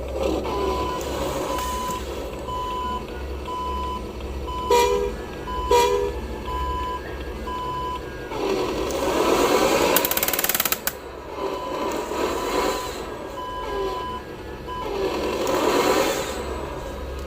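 Radio-controlled dump truck model sounding repeated reversing beeps for roughly the first ten seconds, with a motor whine that rises and falls in pitch several times as it manoeuvres.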